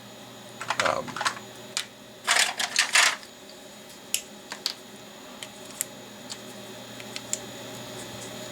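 Plastic AAA-to-AA battery adapter and battery being handled and fitted together: light clicks and scrapes, with a louder cluster of clicks about two and a half seconds in, then scattered small clicks.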